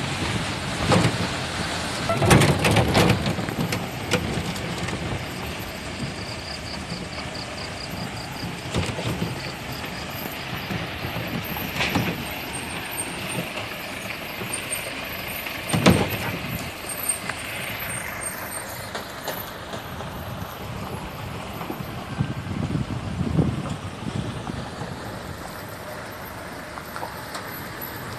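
A car driving along a wet, uneven road: steady road and engine noise with several sharp thumps as it goes over bumps, the loudest about two seconds in and about sixteen seconds in.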